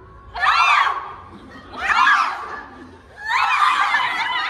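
A group of young voices shouting and screaming together in three loud bursts, the last one the longest.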